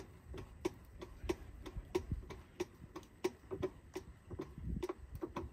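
Hand fluid pump being stroked to fill a transfer case with gear oil, clicking with each stroke about three to four times a second, a little unevenly, and stopping near the end.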